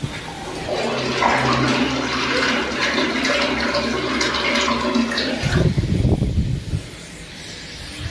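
Water gushing from a corrugated hose into a partly filled steel tanker tank, splashing and bubbling, over a steady low hum. About five seconds in, the rush gives way to uneven low rumbling, then quieter sound.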